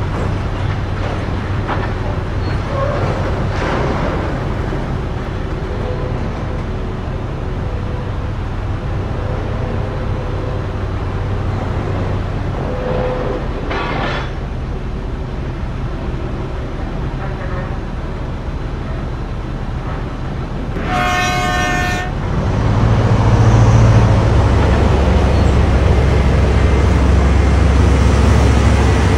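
Heavy mining machinery running: the steady drone of an electric rope shovel loading haul trucks. About three-quarters of the way through a horn sounds one blast of about a second, and then a deeper, louder haul-truck engine rumble takes over.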